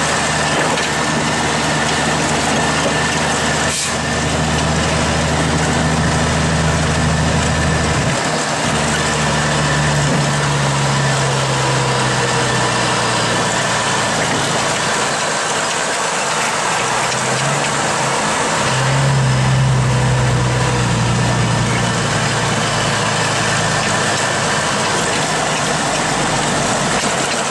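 A log truck's diesel engine running on the road, over a steady wash of road noise. The engine note falls and rises a few times as the revs change.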